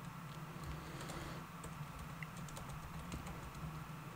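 Faint typing on a computer keyboard: scattered light key clicks, over a low steady hum.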